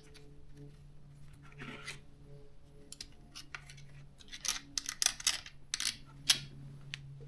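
Scattered clicks, taps and light scrapes of small parts and hand tools being handled while a chainsaw is taken apart, busiest from about halfway through, over a low steady hum.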